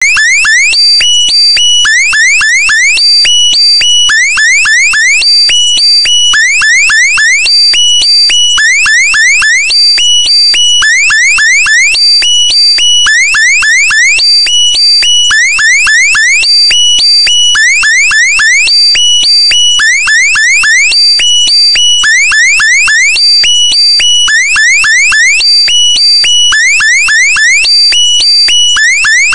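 Loud synthesized electronic alarm sound effect: a quick group of rising chirps followed by short steady beeps, the pattern repeating about every two seconds.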